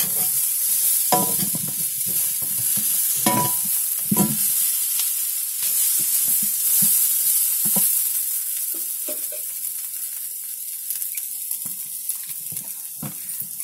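Potato masala sizzling in a kadai while a metal spatula stirs it, scraping and knocking now and then against the pan. The sizzle eases a little in the second half.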